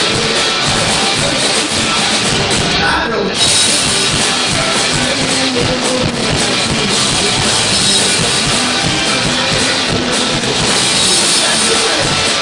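Live rock band playing loudly: electric guitar and a drum kit driving a fast, full-band song.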